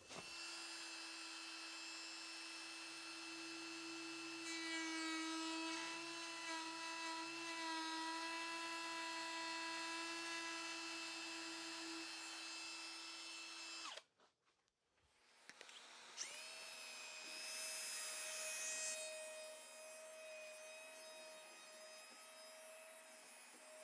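Milwaukee cordless compact router running at high speed with a steady whine, flush-trimming the overhanging PVC edge trim. The sound stops about 14 seconds in. A couple of seconds later the router spins up again with a rising whine, is louder for a few seconds as it cuts, then settles to a steady run.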